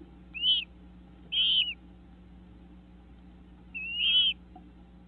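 Great crested flycatcher giving three short whistled calls, each rising then dipping at the end, the last one about four seconds in.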